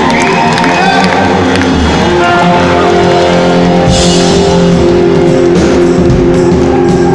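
Live rock band playing loudly, with electric guitar, electric bass and drum kit; a cymbal crash comes in about four seconds in.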